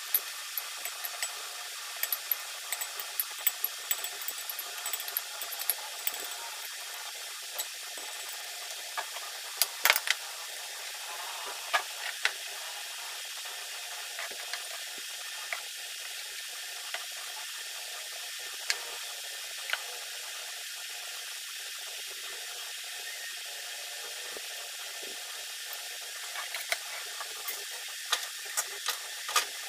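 Scattered light clicks and clinks of a kitchen knife and ceramic bowls as tomatoes and onions are sliced over a small bowl, heard over a steady hiss; the clicks come thickest in the first few seconds, with the loudest about ten seconds in and another cluster near the end.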